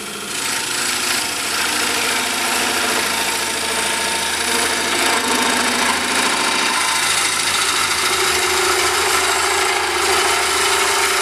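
Korpro coring cutter slicing into a wooden bowl blank spinning on a lathe: a steady, loud shearing noise of the blade cutting as shavings stream out, with the lathe running underneath. A steadier tone joins about seven seconds in as the cut goes deeper.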